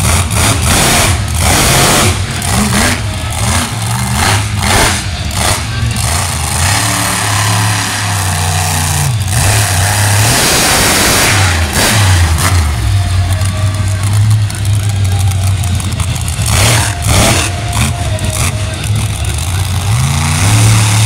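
Monster truck's engine running hard, revving up and easing off several times as the truck drives around the dirt arena.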